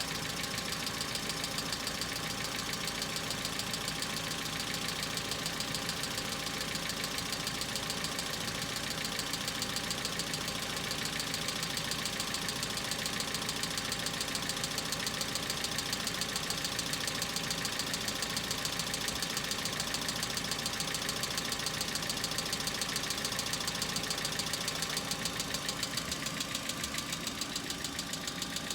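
Hyundai Accent engine idling cold, with a steady rapid ticking from its hydraulic lifters: lifter tap on a cold engine that builds, lasts a while, dies away and then returns as it warms up.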